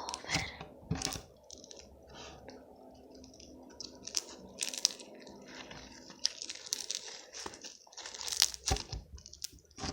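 Slime being squeezed and stretched by hand, giving irregular sticky pops and crackles.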